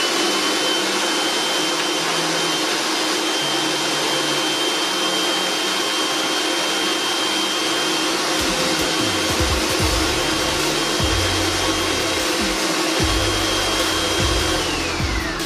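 Hamilton Beach Stack & Snap food processor's 450-watt motor running on the puree/mix speed with the S blade, a steady whirr with a high whine over it, chopping garlic and jalapeño. Low knocks come in from about halfway through, and near the end it is switched off and the whine falls as the motor winds down.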